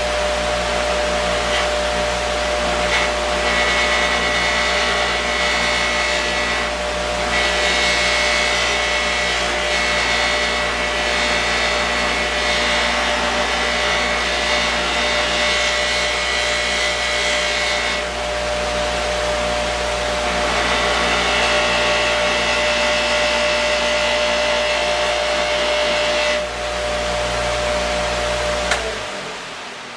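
Bauer 8-inch stationary buffer running steadily while a steel plane chip breaker is pressed against the spinning buffing wheel, which adds a higher whine and hiss in stretches of several seconds. Near the end the motor sound drops away and fades.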